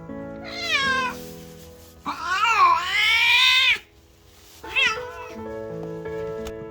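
Maine Coon cat meowing three times: a falling call about half a second in, a long, loud call that rises and then falls from about two seconds in, and a short call near the end, over steady background music.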